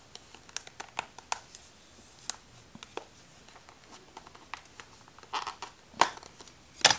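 A plastic phone case being pried off an iPhone by hand: scattered small clicks and scrapes, with a few louder snaps near the end.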